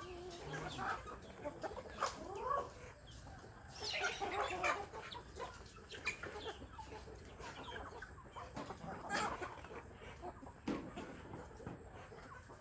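Chickens clucking: short, irregular calls overlapping one another, with louder flurries of calls about four and nine seconds in.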